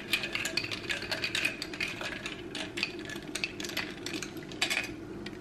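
A small metal teaspoon stirring an iced drink in a glass mug, clinking quickly and irregularly against the glass and the ice cubes.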